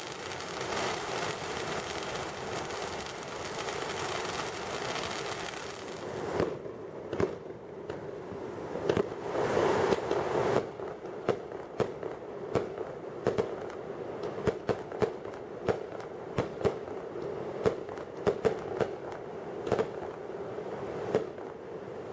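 Fireworks: a ground fountain firework hissing steadily as it sprays sparks, then, after about six seconds, a long irregular string of sharp bangs and cracks, a couple a second, from aerial shells bursting overhead.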